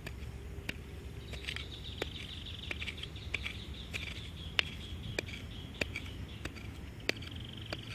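Scattered sharp clicks and crackles of a hand working in hard, dry soil around a leucaena sapling being dug up. Behind them, a high, steady trill comes in about a second and a half in, fades, and returns near the end.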